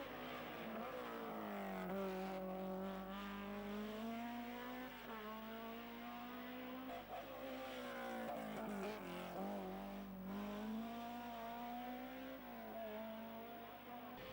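Race car engines revving hard up a hillclimb road as the cars pass one after another, the pitch climbing and dropping back several times as they change gear.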